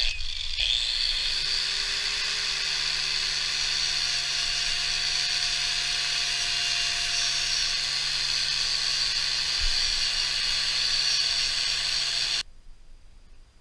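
Handheld electric power tool starting up, its motor spinning up within the first second, then running steadily at high speed with a high whine. It shuts off abruptly near the end.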